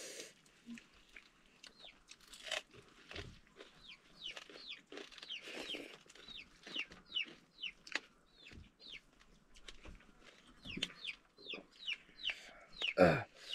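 Chickens in the background: a run of short, high, falling peeps, several a second, with one louder call near the end.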